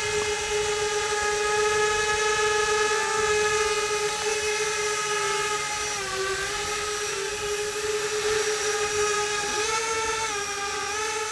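DYS Lightning 220 racing quadcopter's motors and propellers whining in flight, a steady high whine whose pitch dips about six seconds in and rises again near the end as the throttle changes.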